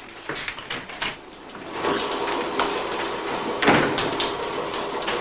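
A few light knocks, then a door banging shut about three and a half seconds in. Under it, a steady hum of cannery machinery sets in about two seconds in.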